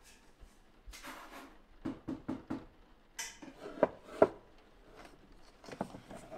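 Plastic bottles and tubs being moved about on a wooden shelf: a rustle and a quick run of light knocks, then two sharp knocks about four seconds in, and a few more knocks near the end.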